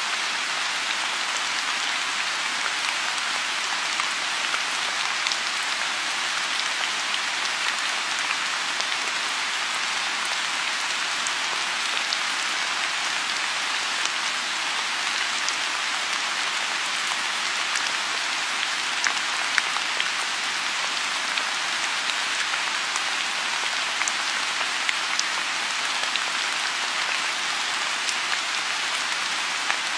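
Steady rain falling on a lotus pond: an even hiss with scattered sharp ticks of single drops close by.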